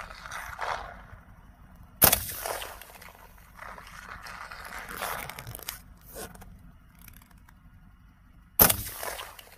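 Two 12-gauge shotgun shots, firing Olimp-D 12x70 shells loaded with 33 g of No. 7 shot. Each is a single sharp crack with a short decaying tail; the first comes about two seconds in and the second near the end, about six and a half seconds later.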